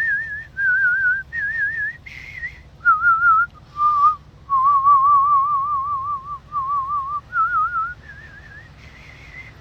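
A person whistling a slow tune: a string of clear single notes, each held with an even vibrato, stepping up and down in pitch, with one long low note in the middle.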